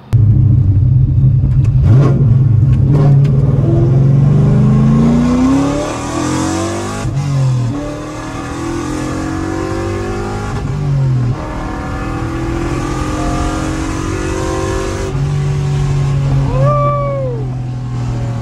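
Straight-piped 1998 C5 Corvette V8 (long-tube headers, catless X-pipe, no mufflers) pulling hard at full throttle. The revs climb steadily for about six seconds, drop at an upshift, climb again, and drop at another upshift about eleven seconds in, then run steadier near the end.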